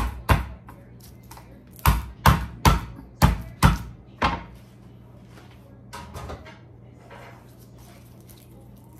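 Meat-tenderizer mallet crushing garlic cloves on a wooden cutting board. Eight sharp knocks: two at the start, then six in quick succession from about two seconds in, followed by a few fainter knocks around six seconds in.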